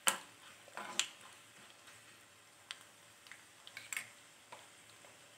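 Mustard seeds, cumin and dried red chillies frying in hot ghee in a small pan, giving sparse sharp pops and clicks: two louder ones near the start and about a second in, then smaller scattered ones.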